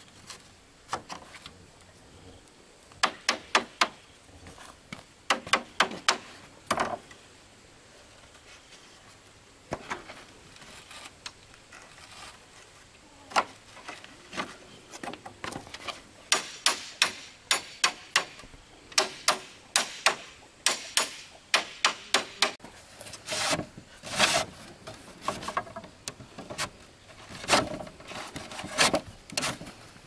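Sharp knocks of a hand tool striking wood, in irregular runs of quick strikes with pauses between, coming thicker and faster in the second half.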